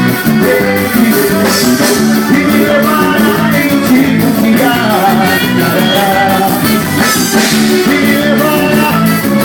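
Live band playing up-tempo gospel forró with a steady drum beat.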